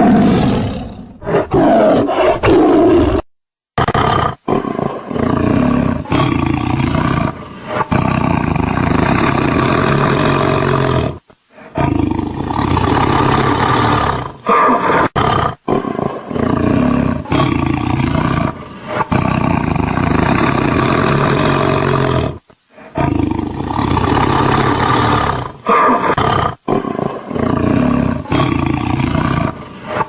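Tiger roaring, one loud roar after another with only short breaks. The sound cuts off suddenly a few times, where separate recordings are joined.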